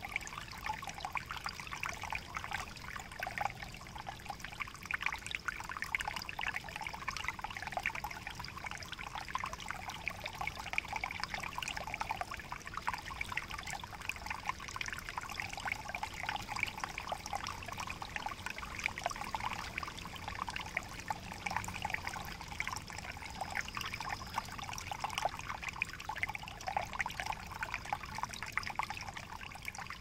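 Small creek trickling over rocks and spilling in a thin fall into a shallow pool: a steady babble of many small splashes and gurgles.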